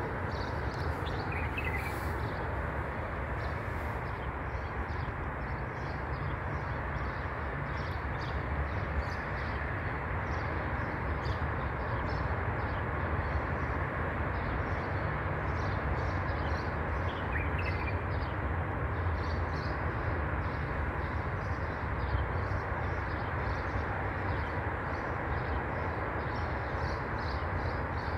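A cat chewing wet food: many faint, quick clicks over a steady low outdoor rumble. Two brief high chirps come about a second in and again midway.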